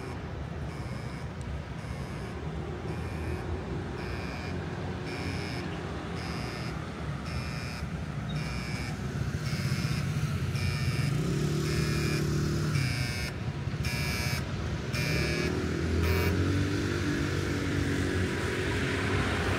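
Street traffic with an electronic beep repeating a little more than once a second, which stops about sixteen seconds in. A vehicle engine passes about eleven seconds in and again near the end.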